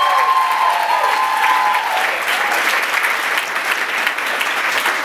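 Theatre audience applauding, with a few voices cheering over the clapping in the first couple of seconds.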